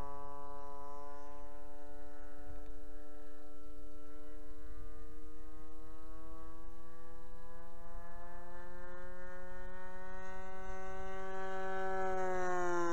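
Radio-controlled model airplane's engine running steadily, its pitch slowly climbing over most of the clip and then dropping near the end.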